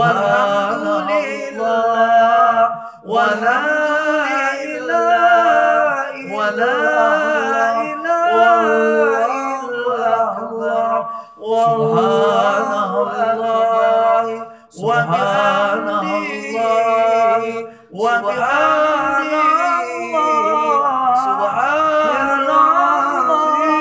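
A man singing an Arabic devotional chant (dhikr) unaccompanied, in long ornamented phrases with short breaks for breath.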